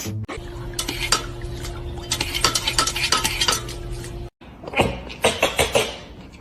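Rapid clinking and scraping like utensils on dishes, over a steady low hum. It breaks off suddenly about four seconds in, then a second run of clinks follows.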